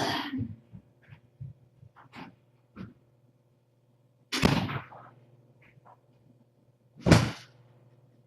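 Two loud, short thumps about three seconds apart, the second the louder, with a few faint clicks between, over a steady low hum.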